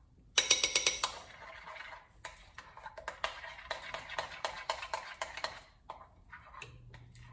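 Utensil rapidly beating pancake batter in a mixing bowl, a quick run of clicking strikes against the bowl. Starts about half a second in and stops about five and a half seconds in.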